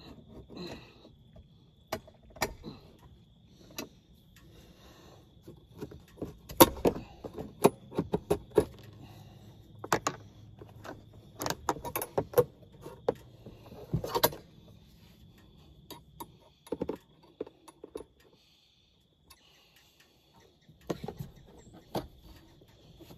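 Irregular clicks, knocks and rattles of a deer carcass being handled and secured on an ATV's front rack, thickest in the middle stretch, pausing, then a few more near the end.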